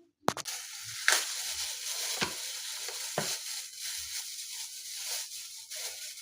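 Tap water running steadily into a sink, starting suddenly about a quarter second in, with a few knocks of things being handled.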